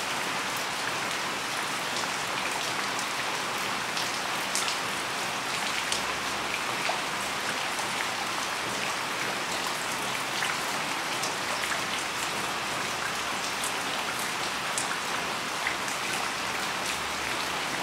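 Heavy rain falling steadily on garden plants and leaves, a continuous hiss with many separate drops ticking close by.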